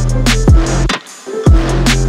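Electronic intro music with a heavy, sustained bass and hard drum hits about once a second; the music briefly drops out about a second in before coming back in.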